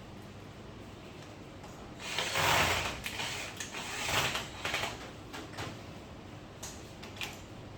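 Scraping and rustling handling noises starting about two seconds in, with a second scrape a little later and a few sharp clicks near the end.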